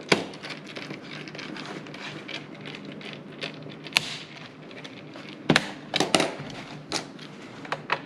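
A small screwdriver driving a screw into a laptop's plastic base, with scattered sharp clicks and taps of the tool and hands on the plastic case, several of them between about five and a half and eight seconds in.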